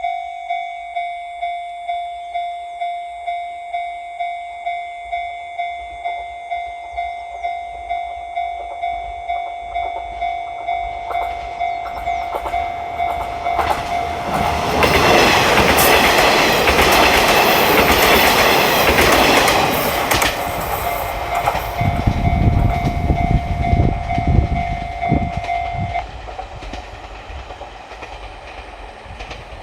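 Japanese level-crossing warning signal clanging steadily about twice a second while the Resort Shirakami 'Kumagera' train passes, the train loudest from about 14 to 20 seconds in, followed by low wheel clatter. The crossing signal stops about 26 seconds in and the train noise fades.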